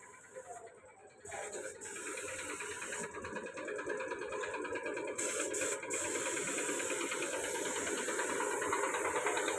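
A paint spray gun hissing over a steady, fast-pulsing mechanical rattle, starting about a second in.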